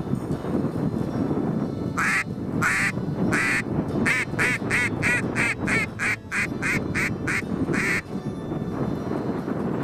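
Duck quacking in a long series: a few spaced quacks starting about two seconds in, then a quick run of about three a second, and one last quack near the end, over background music.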